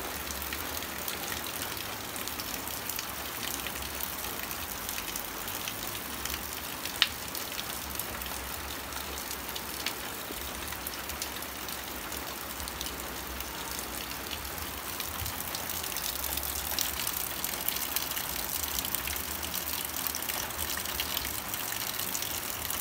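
Rain falling steadily in a dense hiss with many small drop ticks, one sharper tap about seven seconds in, growing a little heavier over the last several seconds.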